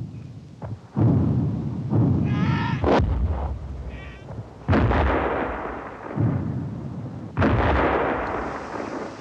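Shell explosions in a battle, about five heavy blasts a second or two apart, each dying away slowly. A man cries out briefly between the second and third blast.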